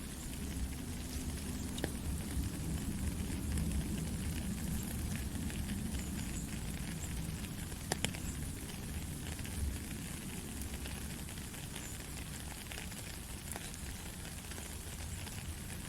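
Steady rain falling: a dense patter of drops over a low rumble, with a couple of louder single ticks.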